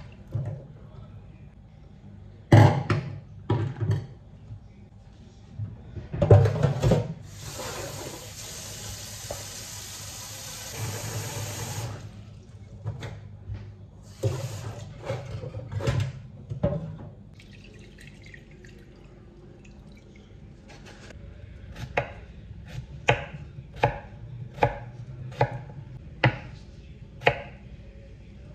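Kitchen sink work: knocks and clatter in a stainless steel sink, then a tap running into a pot for about four seconds. In the last third, a knife chops peeled potatoes on a wooden cutting board in regular strokes, a little more than one a second.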